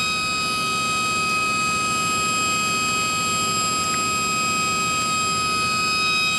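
Spindle of a YCM Supermax XV1020A CNC vertical machining center running at a steady 7,000 RPM: a constant high-pitched whine of several tones over a motor hum, holding its pitch.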